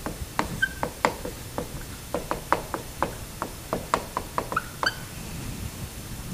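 Dry-erase marker writing on a whiteboard: a quick run of taps and strokes with a few short squeaks as letters are written, stopping about five seconds in.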